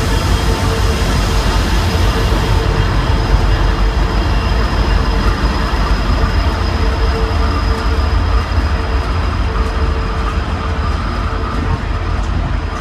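Norfolk Southern freight train's diesel-electric locomotives (EMD SD60E and GE C44-9W) passing close by: a loud, steady low engine rumble with a thin steady whine above it. Near the end, freight cars are rolling past.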